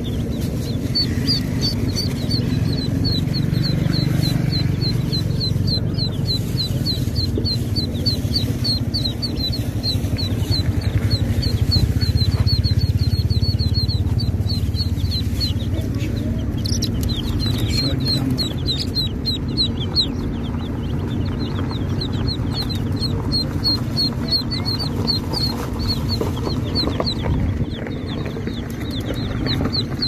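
A flock of baby chicks peeping, a steady stream of short high peeps several a second without pause, over a steady low rumble.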